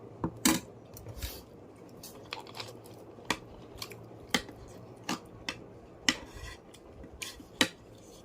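Dishes and cutlery clinking during a meal: a dozen or so sharp, separate clinks at irregular intervals, the loudest about half a second in.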